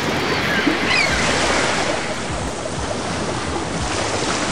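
Steady rush of ocean surf, waves washing without a break, with a few faint high chirps about a second in.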